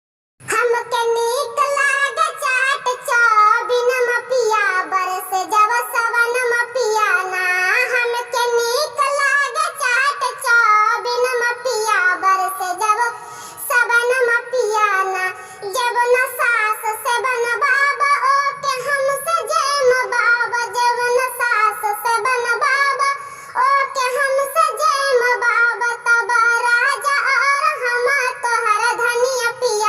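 A high, pitch-raised 'cartoon cat' singing voice singing a kajri, a Sawan-season folk song, in a continuous ornamented melody that starts about half a second in.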